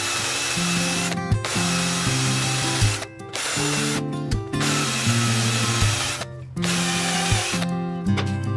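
Electric power tool motor running in stretches of one to three seconds, with short stops between them, over background music with a stepping bass line.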